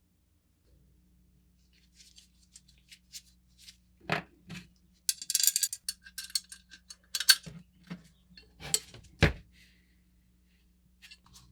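Hand-tool work on metal: scattered clinks and knocks, a short scraping run about five seconds in, and a few sharp knocks.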